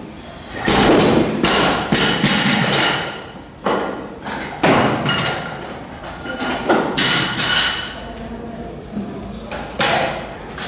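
Olympic barbells loaded with rubber bumper plates dropped onto lifting platforms, each drop a heavy thud with a bounce and a fading metallic ring; it happens several times.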